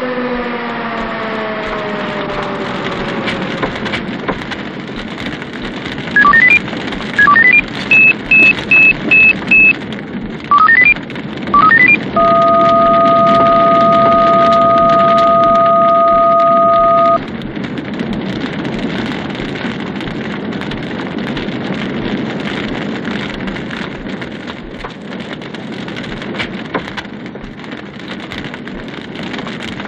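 A siren winding down, its pitch falling away over the first few seconds, over a steady rushing noise. From about six seconds in comes a run of loud electronic beeps and short rising chirps, ending in one steady electronic tone held for about five seconds.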